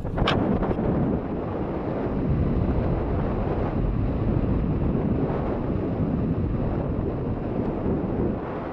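Wind buffeting the camera's microphone: a steady, dense rush strongest in the low end, with one sharp click just after the start.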